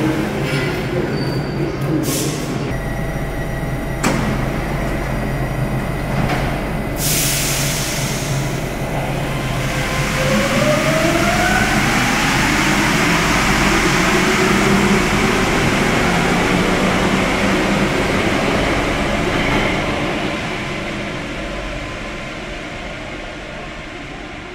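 A Paris Métro MP14 CC rubber-tyred train starts away from the platform: a few sharp clicks, then a burst of hiss, then a rising motor whine as it accelerates. The running noise grows loud and then fades as the train leaves the station.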